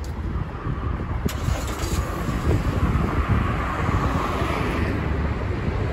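Street traffic: a car passes close by, its tyre and engine noise swelling for a few seconds and then fading, over a steady low traffic rumble. A brief sharp click about a second in.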